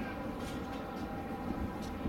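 Steady low background rumble of outdoor noise, with a few faint short clicks.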